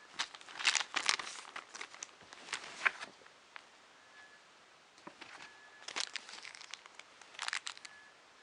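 Plastic packaging crinkling as it is handled, in irregular bursts: a busy stretch at first, a lull, then two shorter bursts near the end.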